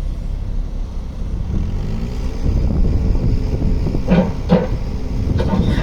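Yanmar VIO25-4 mini excavator's diesel engine running, its pitch rising about a second and a half in, with a few sharp metallic clanks around four seconds in and again near the end.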